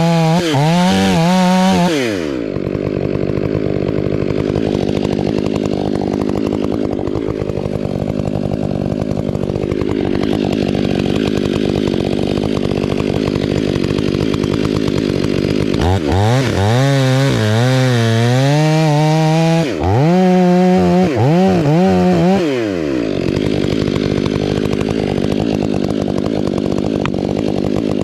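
Two-stroke chainsaw at full throttle for about two seconds, its pitch dipping and rising as if under load, then dropping back to idle. About two-thirds of the way through it is revved up again for roughly six seconds, with the same dipping and rising, before settling back to idle.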